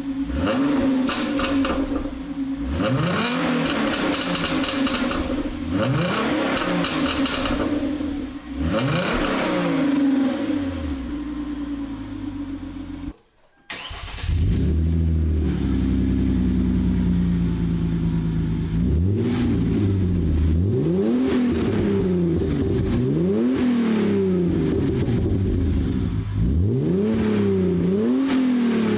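Hyundai Genesis Coupe's 3.8-litre V6 revved repeatedly through a CNT v3 cat-back exhaust, with downpipes and test pipes in place of the secondary cats. Each blip rises and falls in pitch. The sound cuts out briefly about 13 seconds in, then the revving resumes with a blip about every two seconds.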